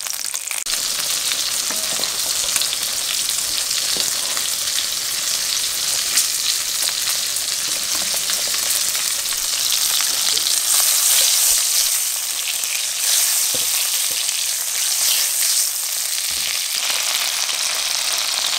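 Two pork bratwurst sizzling in fat in a frying pan: a steady frying hiss peppered with small pops and crackles, swelling a little around the middle.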